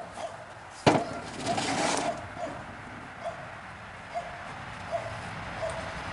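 A wooden piece of lumber set down on a table with a sharp knock about a second in, then a short scrape and rattle as it settles.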